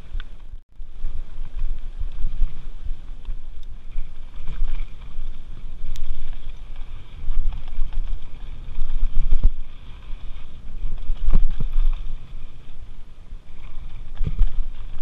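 Wind buffeting the microphone and the uneven rumble of a mountain bike rolling over a dirt singletrack, with a few short clicks and rattles from the bike. The sound cuts out for an instant about half a second in.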